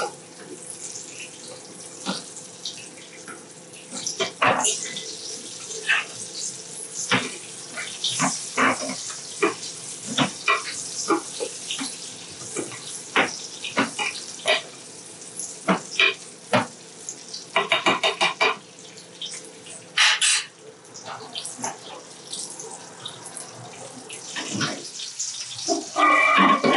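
Butter sizzling and spitting in a frying pan under a brill fillet, a steady hiss full of sharp crackles, as the hot butter is spooned over the fish. Near the end there is a louder clatter.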